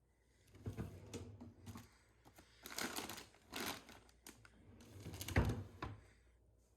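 Handling noise: a string of irregular clicks and rustling, with a louder low thump about five seconds in.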